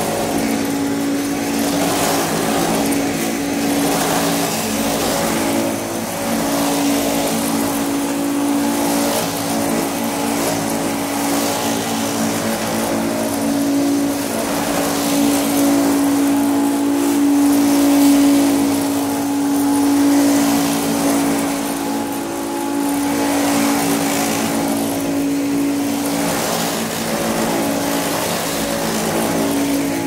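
Upright vacuum cleaner running steadily: a motor hum with one strong steady tone under a rush of air. The rush swells and eases about every two seconds.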